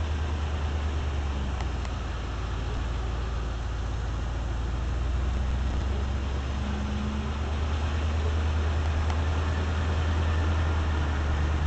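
A car driving along a patched asphalt street: a steady low rumble of engine and road noise.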